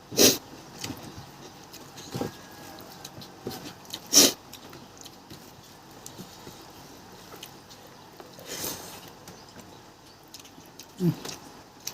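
Close-miked eating sounds: a few sharp mouth sounds a couple of seconds apart, with quieter chewing between, a longer noisy slurp or breath about two-thirds through, and a short low hum near the end.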